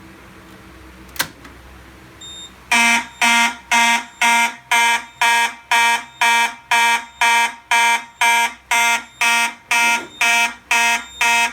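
A sharp click about a second in, as the Simplex 4250-120 pull station is pulled. Then the panel goes into alarm: the Simplex 2901-9838 horn starts sounding in march-time code, even pulses about two a second.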